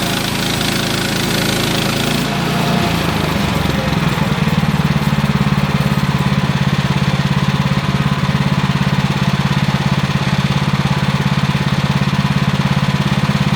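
Woodland Mills HM130 Max portable bandsaw sawmill with its small gasoline engine running steadily. The sound changes about two to four seconds in: a hissy noise fades and the engine hum settles into a fast, even pulsing.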